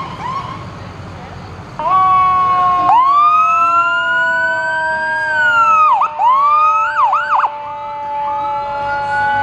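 Fire engine siren sounding as the truck passes: a few short whoops, then a wail that winds up, falls, breaks into quick yelps and winds up again. Under it, a steady two-note horn comes in about two seconds in and holds on.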